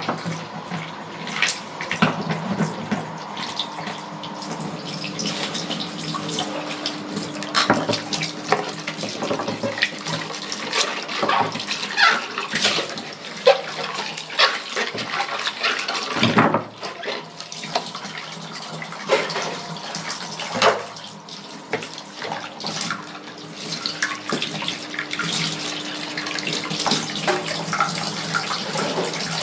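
Dishes being washed by hand at a sink: tap water running steadily while plates and utensils knock and clink together many times.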